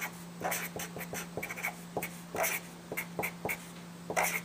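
Marker writing on a whiteboard: a quick, irregular run of short scratches, taps and squeaks as the strokes are drawn, over a steady low hum.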